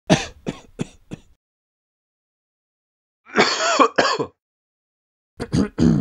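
A person coughing in three fits. Four quick coughs come in the first second, then a longer, voiced cough in two parts about three and a half seconds in, then three more quick coughs near the end.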